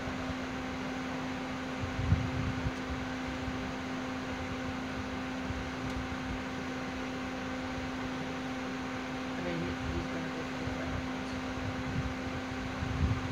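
Steady mechanical hum with a hiss over it, like a fan or a motor running, with a few low rumbling bumps about two seconds in.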